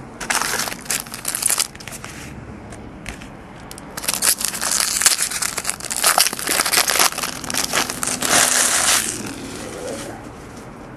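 A Bowman baseball card pack's foil wrapper crinkling as it is handled and torn open. It comes in two spells: briefly at the start, then louder and steadier for about five seconds from four seconds in.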